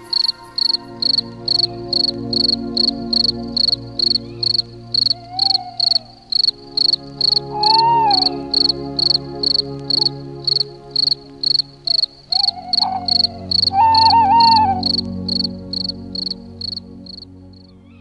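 Crickets chirping steadily, about three chirps a second, stopping shortly before the end. Under them runs a low steady drone, and a few short wavering calls come in now and then.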